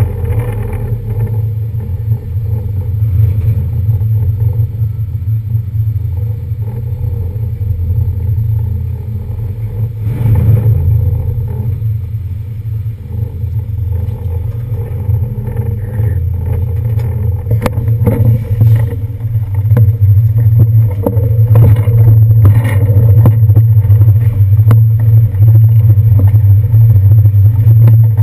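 Docked ferry's engines running with a loud, steady low rumble. Scattered clatter and knocks join in, growing busier and louder over the second half.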